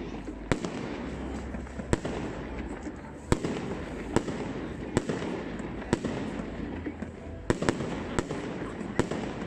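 Aerial fireworks bursting: sharp bangs about once a second, coming quicker near the end, over a steady background din.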